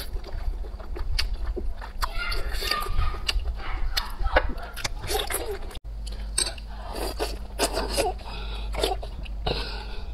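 Close-miked wet eating sounds: sea snail meat pulled from its shell and squished in sauce, then oysters slurped and chewed, with many scattered clicks. The sound drops out briefly about halfway through.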